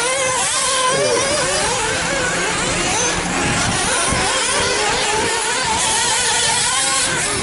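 Several 1/8-scale nitro RC buggy engines racing at once, making overlapping high-pitched whines that rise and fall as the cars rev and lift off.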